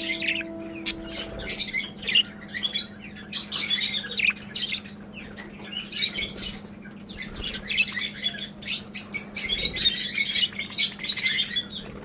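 A flock of budgerigars chattering, with rapid high chirps and squawks coming in bursts every second or so. A low steady hum runs underneath, and a few held musical tones fade out in the first second and a half.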